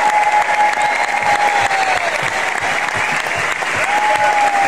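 A large audience applauding, with two long held calls from the crowd rising above the clapping, each sliding down in pitch at its end.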